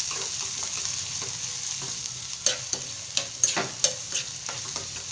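Chopped onions and curry leaves sizzling in hot oil in a nonstick kadai as a spatula stirs them. The spatula scrapes and knocks against the pan several times, most sharply in the second half.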